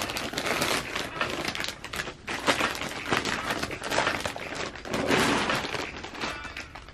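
Packaging being handled and torn open: irregular crinkling and rustling with sharp crackles, louder in swells about two and a half and five seconds in.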